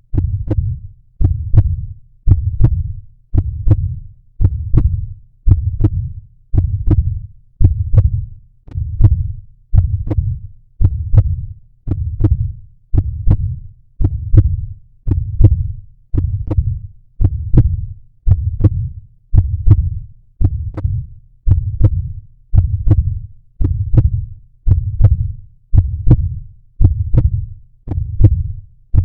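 Heartbeat sound: low, steady thumps at a little over one beat per second, an even resting pace.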